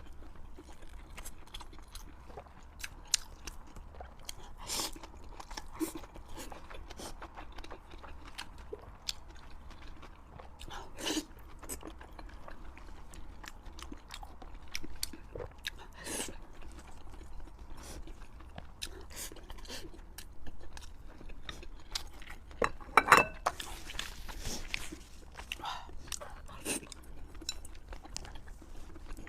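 Close-miked chewing and crunching of fried pork, with a steady run of short, sharp bites and mouth clicks. The loudest cluster of crunches comes about 23 seconds in.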